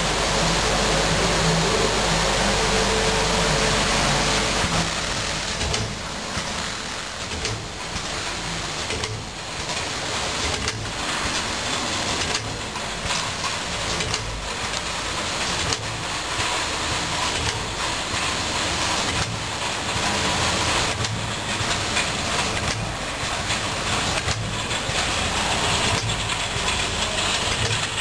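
ITRA BVM Compacta 7522 film overwrapping and shrink-packaging machine running: a steady mechanical hum and hiss, with a regular knock from the wrapping and sealing cycle roughly every one and a half to two seconds after the first few seconds.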